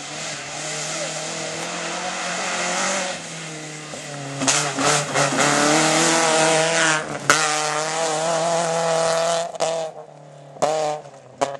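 Volkswagen Golf Mk2 rally car at full speed on a gravel stage: its engine grows louder as it approaches, then runs at high revs with the note rising and falling as it passes close, over a heavy hiss of tyres throwing gravel. There is one sharp crack about seven seconds in, and the sound drops away after about ten seconds.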